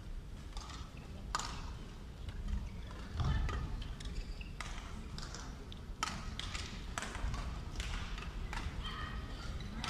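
Badminton doubles rally: sharp racket strikes on the shuttlecock about once a second, with short squeaks of court shoes on the floor, over a low crowd murmur.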